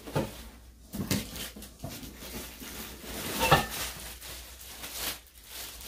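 Cardboard box and plastic-wrapped parts being handled while a hammock stand is unpacked: irregular rustling and crinkling with a few light knocks, the loudest crinkle a little past halfway.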